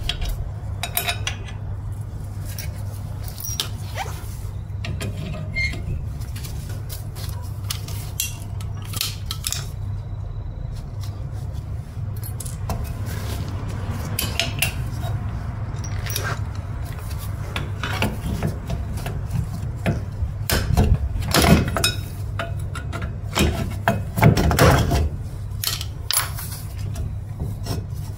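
Metal clinks and rattles of rear drum brake parts being worked by hand: the shoes, return springs and hold-down pins coming off the backing plate, with sharp clicks that come thicker and louder in the second half. A steady low hum runs underneath.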